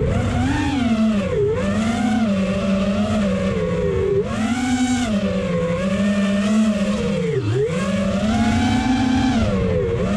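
FPV drone's motors and propellers whining, the pitch rising and falling with the throttle, with a deep dip about seven and a half seconds in. Wind rumbles on the microphone underneath.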